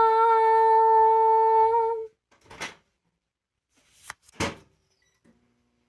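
A girl's voice humming one steady, high note for about two seconds, which then cuts off. It is followed by a few short, soft noises.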